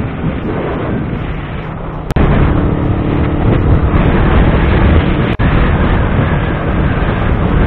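Heavy wind buffeting on the microphone of a moving motorcycle, with the engine and road noise running underneath. The noise jumps louder about two seconds in and drops out for an instant a little past five seconds.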